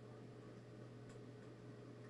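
Near silence: room tone with a steady low hum and a faint tick about a second in.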